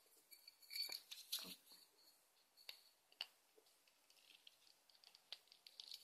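Near silence broken by a few faint, scattered clicks and taps of small plastic toys being handled.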